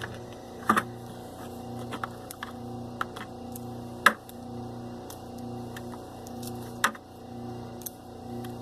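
Sharp clicks and snaps of brittle, sun-hardened insulation being stripped off old copper service wire with a wire stripper, the loudest about four seconds in, over a steady low hum.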